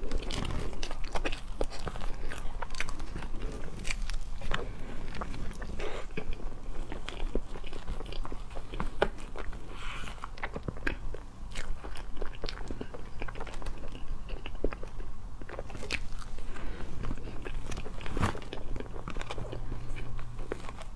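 Close-up eating sounds: wet chewing and lip smacks on a soft matcha cream roll cake, mixed with many short clicks and crackles from the thin plastic tub being handled and a metal fork scraping inside it.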